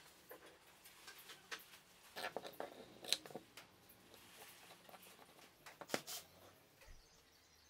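Light clicks and knocks of plywood jig parts being handled and set down on a wooden workbench, with a few sharper taps about three seconds in and near six seconds.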